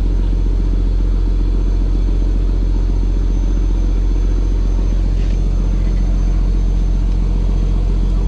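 A fishing boat's inboard diesel engine running steadily, a constant low drone with an even pulse.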